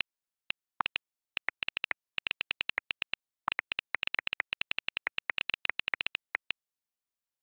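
iPhone on-screen keyboard clicks: rapid key taps of a message being typed, in quick runs with brief pauses, stopping about a second before the end.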